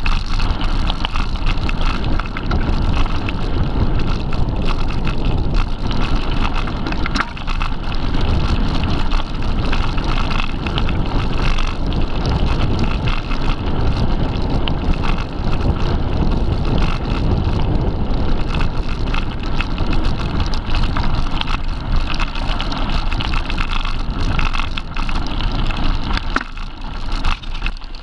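Mountain bike riding over a rough forest dirt track: a steady rumble of wind buffeting the microphone and tyres on the ground, with scattered rattles and clicks from the bike over bumps.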